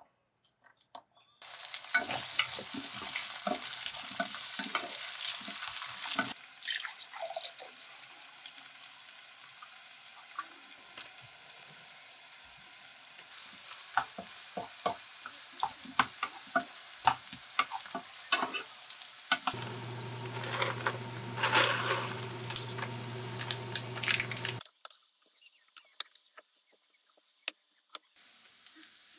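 Garlic cloves and sliced green chili sizzling in oil in a frying pan, with a wooden spoon stirring and knocking against the pan. A steady low hum joins for about five seconds, then the sound drops off sharply and only faint sizzling is left near the end.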